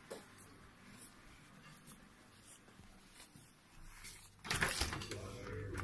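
Faint room tone with a few light ticks, then about four and a half seconds in a short loud clatter as a door is pushed open. A low steady hum follows.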